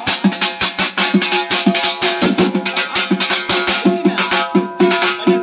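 A band-set drum troupe beating a fast rhythm on shallow stick-played drums and a large bass drum, with a pitched instrument sounding steady repeated notes underneath.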